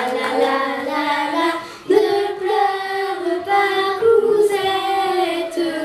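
A high voice singing a melody in held notes that step up and down, with a short break just before two seconds in.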